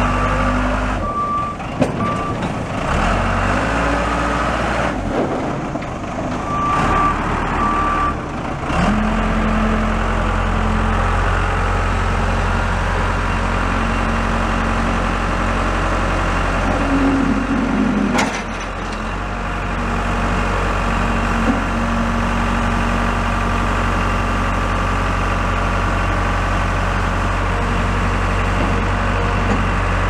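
Case 580L Series 2 backhoe's Cummins four-cylinder diesel running as the machine is driven and its loader worked. Its backup alarm beeps at the start and again around seven seconds in. From about nine seconds the engine holds a steady higher speed, with a whine rising briefly near the middle while the loader bucket is raised.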